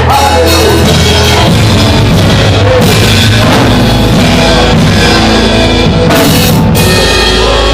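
Loud band music with drum kit, bass and guitar playing at full volume.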